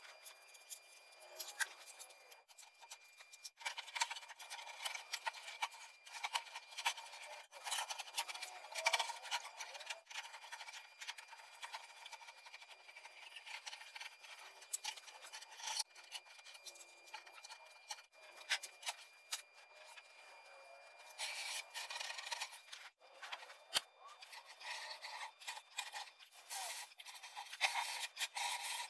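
A stiff paper template being snipped with scissors and crinkled and rubbed as it is pressed against the car's rear wing. The snips, crinkles and rustles come irregularly throughout.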